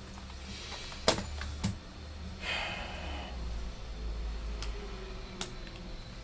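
Small clicks and handling noises from a laptop's internal battery being fitted back in: a sharp click about a second in, a lighter one soon after, a short scratchy rustle near the middle, and another click near the end, over a low hum.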